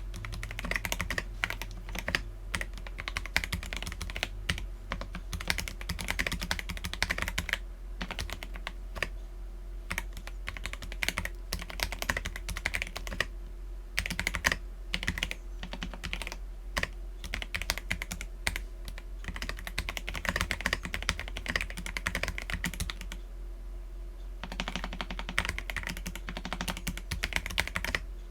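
Continuous typing on an Akko PC75B mechanical keyboard with lubed Akko Jelly Black linear switches and PBT Cherry-profile keycaps: a fast stream of key clacks with a few brief pauses. A faint steady low hum sits underneath.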